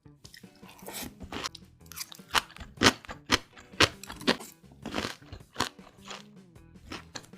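Close-up crunching and chewing of crispy batter-fried tangsuyuk pork: a run of sharp, irregular crunches, loudest in the middle of the stretch.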